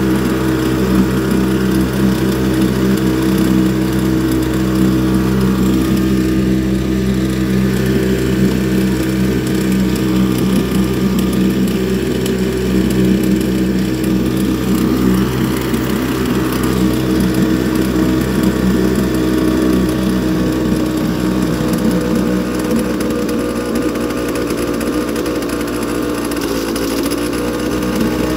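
A YADAO 3.5 HP two-stroke outboard motor running steadily at a slightly raised, clamped throttle, with its lower unit in a trash can of water, during its first break-in run straight out of the box.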